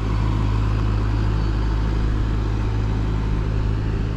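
Loud, steady engine hum of a motor vehicle running close by.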